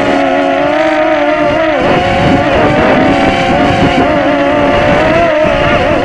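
Walkera QR Ladybird quadcopter's small electric motors whining, heard close up from a camera mounted on the quad. Several pitches waver up and down together as the motor speeds change. From about two seconds in, rough wind buffeting runs beneath the whine.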